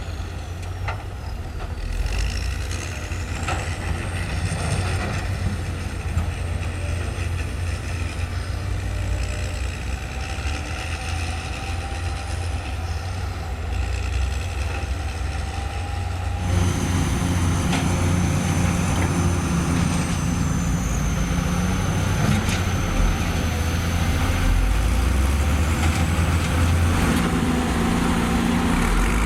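Heavy diesel earthmoving machinery (excavators and a crawler bulldozer) running steadily at work. About halfway through, the sound changes abruptly to a louder, fuller rumble.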